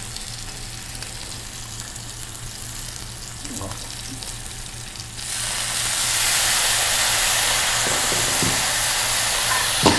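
Thin salmon pieces frying in oil in a skillet, a quiet sizzle; about five seconds in, balsamic vinegar is poured into the hot oil and the sizzle jumps suddenly to a loud, steady hiss.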